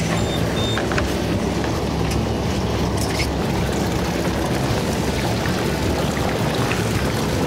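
Fishing boat's engine idling with water sloshing against the hull, a steady low rumble with a few light knocks.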